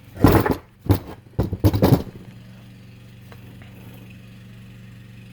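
A few sharp metal knocks and clatters in the first two seconds as the worn wheel hub and bearing assembly is handled, then a steady hum of a lawnmower engine running in the background.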